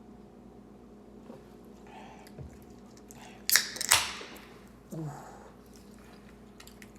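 A drink being opened about three and a half seconds in: a sharp crack and a short hiss that dies away. A short low vocal sound falls in pitch about a second later.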